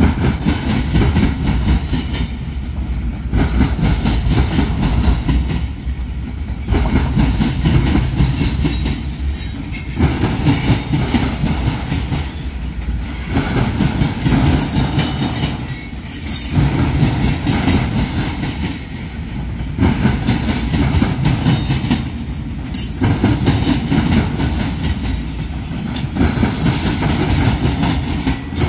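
Freight train rolling past, a heavy low rumble with wheels clacking over the rails. The sound swells and dips about every three seconds as the cars go by one after another.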